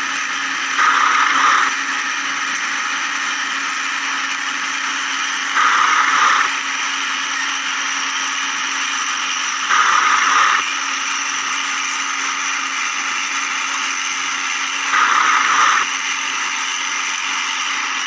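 Battery-powered toy remote-control excavator: a steady electric whine, with four louder whirring bursts of just under a second each, a few seconds apart, as its small motors drive the arm and bucket.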